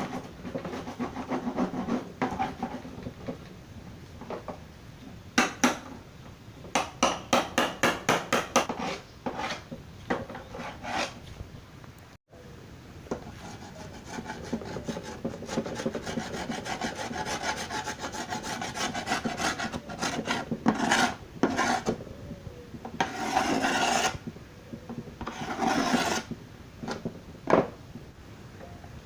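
Wood being scraped or rasped by hand in strokes: a quick run of short strokes, then a long stretch of steady rubbing, then two longer strokes near the end.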